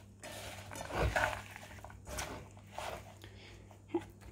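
A hand mixing cut taro stolons and shrimp with spices in a metal frying pan: a few short, soft rustling, squishing bursts as the vegetables are tossed and pressed, the strongest about a second in.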